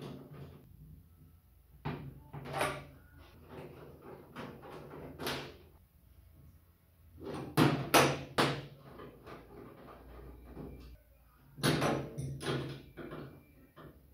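Knocks, bumps and rustles of objects being handled, coming in short clusters with quiet gaps between, the loudest a run of three sharp knocks about eight seconds in.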